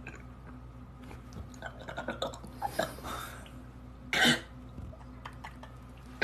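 One short, loud throaty burst from a person about four seconds in, cough-like, after scattered small clicks and mouth noises.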